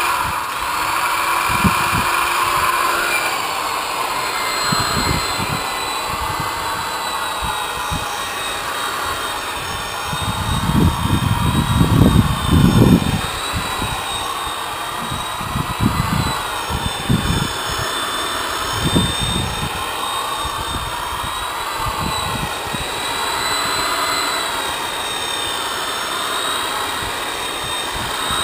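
Corded electric rotary polisher with a foam pad running while it buffs a fibreglass boat hull: a steady motor whine whose pitch wavers slowly up and down. Low rumbling bumps break in now and then, loudest about a third of the way in.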